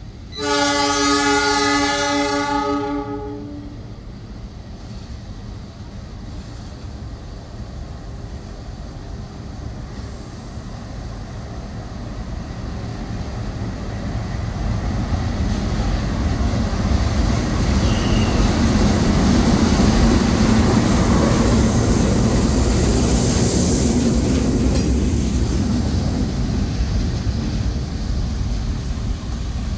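Diesel locomotive horn sounding one blast of about three seconds, then a train approaching and passing, its rumble building to its loudest about twenty seconds in and easing a little near the end.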